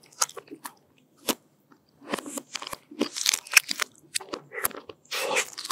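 Close-miked biting and crunching into the hard chocolate shell of an ice cream bar, with chewing and wet mouth sounds. A few sharp mouth clicks come first, then from about two seconds in a dense run of crackling crunches.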